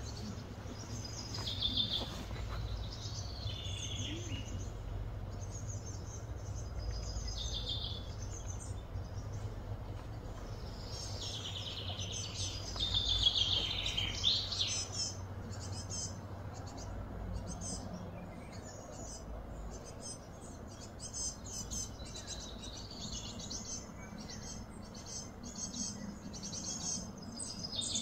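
Wild birds chirping and calling over a steady low background rumble. A burst of louder, falling chirps comes about halfway through, followed by quick, repeated chirps.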